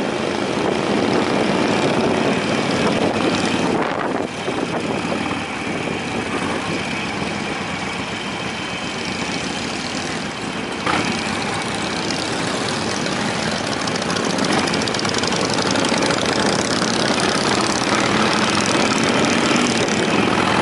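Harley-Davidson V-twin motorcycle engine running under way at a steady pace, mixed with loud wind rushing over the camera's microphone.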